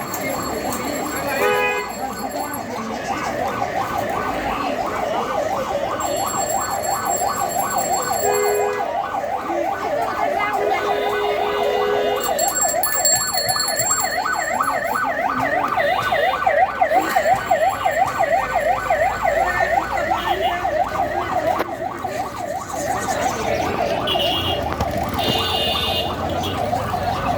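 An electronic siren in a fast yelp, its pitch rising and falling about four times a second, holding steady for most of the time.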